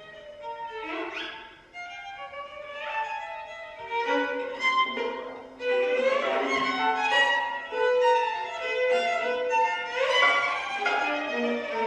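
String quartet playing a contemporary piece, with held notes overlapping and repeated rising glissando slides. The texture grows denser and louder about halfway through.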